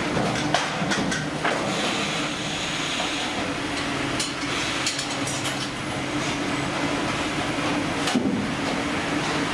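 Heavy machinery running with a steady low hum, with scattered clanks and knocks throughout and a sharper knock about eight seconds in.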